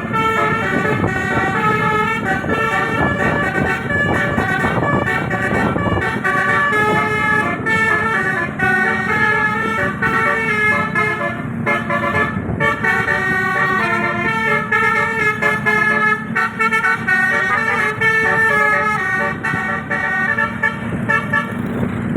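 Indonesian bus 'telolet' air horn with 18 roof-mounted trumpets playing a fast, ever-changing multi-note melody, loud and continuous over the bus's running engine, stopping right at the end.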